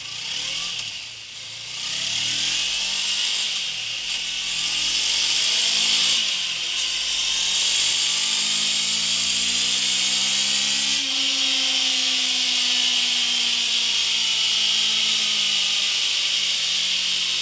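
Honda CB500X's 471 cc parallel-twin engine on its stock exhaust, revving under load on a dyno: the engine pitch climbs for about the first ten seconds, then about eleven seconds in the throttle is rolled off and the pitch falls slowly as it winds down. A loud high hiss from the rear tyre spinning on the dyno roller runs underneath.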